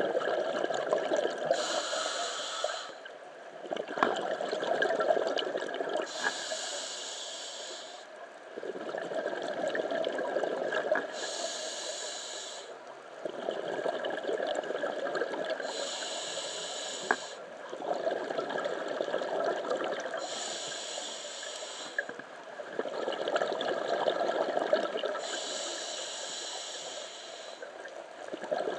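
Scuba diver breathing through a regulator underwater: a hiss on each inhale, then a spell of exhaled bubbles on each exhale. About six breaths, one every four to five seconds.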